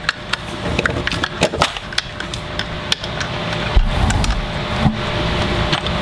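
An Allen wrench torquing a large screw down into a crossbow crank cocking assembly: irregular small metal clicks, knocks and scrapes as the wrench is turned and the stock is handled, with a low thump near the middle.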